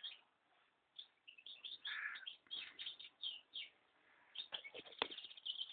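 Young goldfinch chirping: a string of short, high chirps that comes faster and denser near the end. Two or three sharp clicks come shortly before the end.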